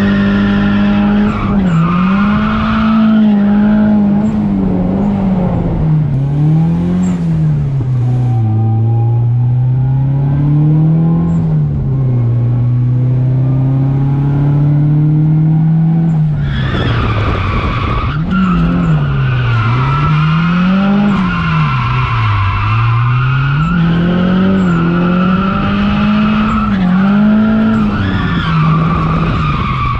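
Nissan 240SX's turbocharged SR20DET four-cylinder heard from inside the cabin while drifting, its revs rising and falling again and again, holding steadier through the middle. Tires squeal and skid throughout, loudest in the second half.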